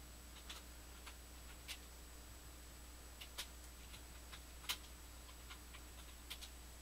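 Computer keyboard being typed on: sparse, irregular keystroke clicks, one louder than the rest near the middle, over a faint steady low hum.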